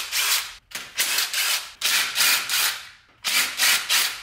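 DeWalt cordless driver spinning off the carburetor hold-down nuts in four runs of about a second each, with short pauses between, as the carburetor is unbolted from the intake.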